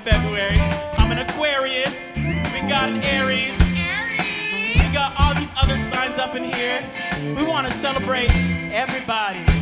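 Live band playing pop-gospel-jazz fusion: drum kit hits and bass under guitar and a lead melody line that slides and bends in pitch.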